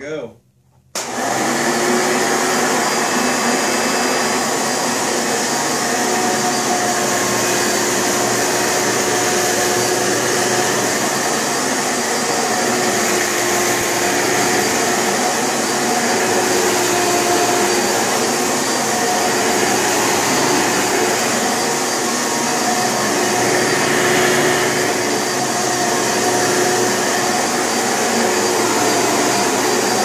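Hoover Preferred upright vacuum cleaner switched on about a second in, then running with a steady motor tone as it is pushed back and forth over carpet, sucking up shredded paper.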